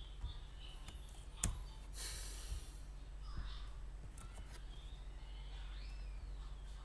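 Computer keyboard and mouse clicks over a low, steady electrical hum: one sharp click about a second and a half in, a short hiss just after, then a few fainter clicks.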